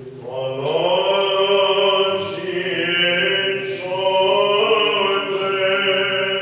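Byzantine chant sung by a male chanter: long, drawn-out melismatic notes that glide slowly in pitch over a steady low drone. The voice swells in about half a second in and dips briefly between phrases.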